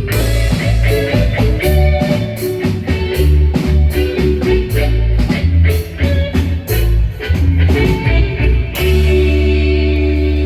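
Live marimba band music, with drum kit and bass, playing a rhythmic up-tempo passage; about nine seconds in it settles onto a held chord.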